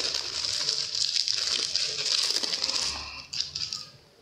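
Clear plastic sleeve crinkling as a notebook is pulled out of it, continuous until about three seconds in, then a few last crackles before it stops.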